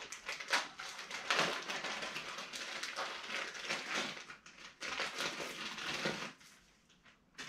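Saw chain and its packaging being handled on a workbench: dense, irregular rustling and clattering that stops a little after six seconds in.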